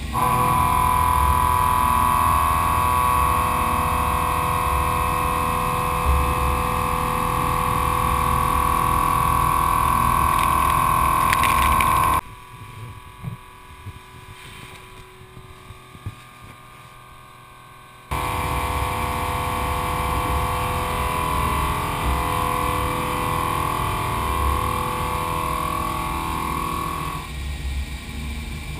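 Mazak 510-II vertical machining centre milling bores to size under coolant spray, heard from inside the machine enclosure: a loud, steady cutting tone over a low rumble. About twelve seconds in it drops to a muffled, much quieter hum, heard from outside the enclosure, for about six seconds, then returns loud, the tone wavering as the cutter circles round the bore.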